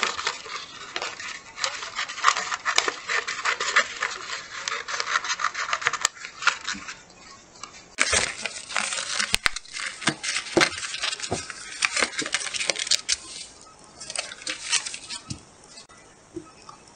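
Scissors cutting through a sheet of clear peel-and-stick laminate film: a dense crackle and rustle of stiff plastic. After a short lull about seven seconds in, the plastic crackles again with a few sharp clicks, then thins out near the end.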